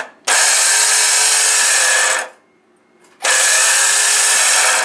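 Gear-reduction starter motor of a Mitsubishi Chariot spinning freely in two bursts of about two seconds each, with a steady high whine. Its drive gear is not turning the flywheel ring gear, so the engine stays still: a sign of a faulty starter drive, which the mechanics blame on the starter.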